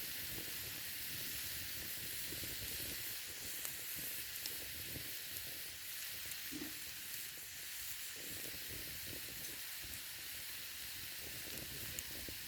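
Food sizzling over campfire coals: a steady hiss with a few faint pops.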